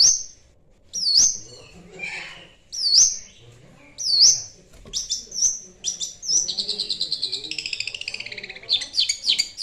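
Long-tailed shrike (cendet) singing: a sharp, high call repeated about once a second, then a fast chattering trill for about three seconds, then a few quick harsh notes near the end.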